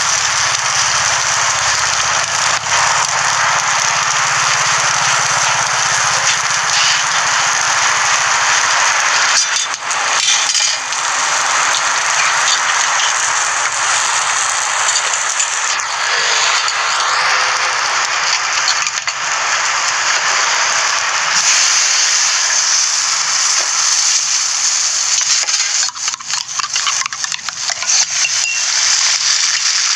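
Egg, ham and cheese sizzling steadily on a hot flat-top steel griddle, with a few sharp clicks.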